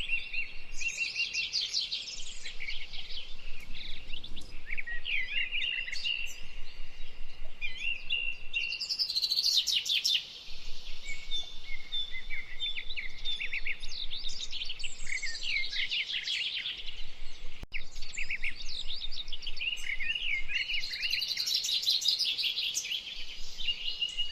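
A songbird singing: a continuous run of rapid chirps and trills mixed with short held whistled notes, going on with hardly a pause.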